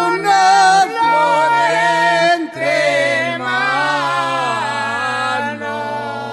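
A solo voice singing a slow Spanish-language farewell song in long, drawn-out, wavering notes over a low held accompaniment that shifts down a step about two and a half seconds in.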